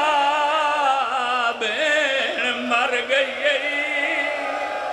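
A man's voice chanting a masaib lament: long, drawn-out notes with a wavering pitch, breaking after about a second and a half into shorter, ornamented sung phrases.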